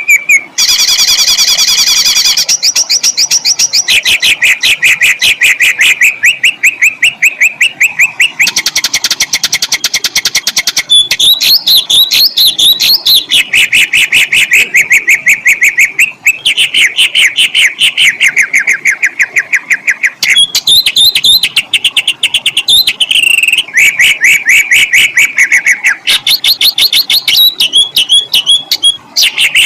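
Songbird song compiled for training cage birds: unbroken runs of harsh, rapidly repeated notes and rolling trills, the phrase changing every few seconds.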